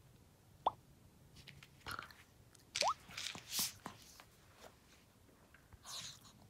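Small Maltese dog eating off the floor, with soft, irregular chewing and crunching. Two short rising squeaks stand out, one early and one about three seconds in.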